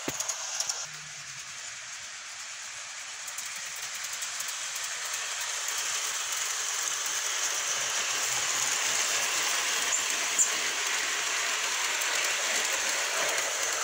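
Garden-scale model steam-outline train running along its track: a steady hissing rush that grows louder over the first several seconds and then holds, with one sharp click about ten seconds in.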